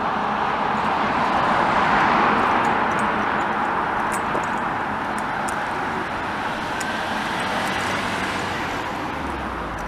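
Road traffic passing close by on a seafront road: a steady rush of tyre and engine noise that swells to its loudest about two seconds in, as a car goes past, then slowly eases.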